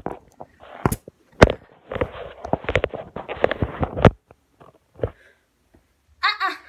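Handling noise from a phone camera being gripped and repositioned close to its microphone: a dense run of knocks, clicks and rubbing, with a sharp knock about a second and a half in.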